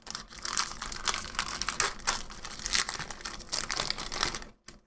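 Foil wrapper of a Magic: The Gathering Double Masters booster pack crinkling as it is torn open and pulled off the cards, a dense run of crackles that stops just before the end.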